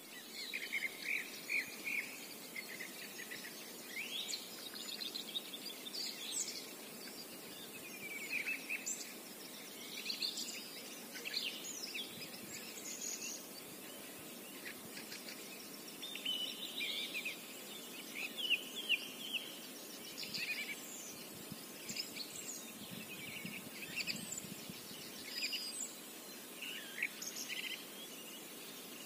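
Songbirds singing: short, varied chirping phrases following one another almost without a break, over a faint steady hiss.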